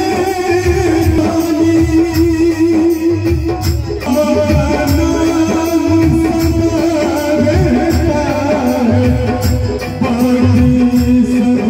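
A male singer singing a devotional bhajan live through a PA system, with long held notes that step between pitches, backed by harmonium and keyboard and a steady hand-drum beat.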